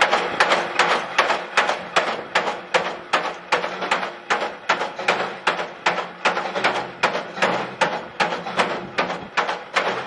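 Mechanical press with a cutting die striking sheet material in a fast, steady rhythm, about three sharp strokes a second.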